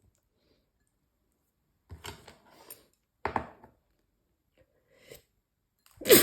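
A person sneezing loudly right at the end, set off by the fumes of chili peppers being stir-fried. Before it come a few short breathy sounds, the sharpest one about halfway through.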